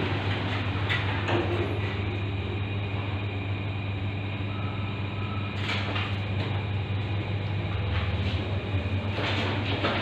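Passenger lift car travelling upward: a steady low hum with a rushing noise over it, and a couple of brief knocks, one about halfway and one near the end.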